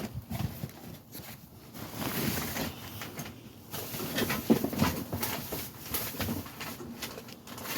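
Irregular knocks, scrapes and rustling of objects being handled and moved about.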